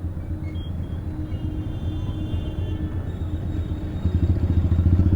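Motorcycle engine and exhaust under way, a steady low pulsing note that grows louder about four seconds in.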